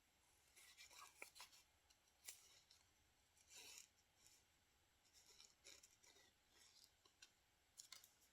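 Faint, scattered snips of scissors cutting paper, with light paper handling in between.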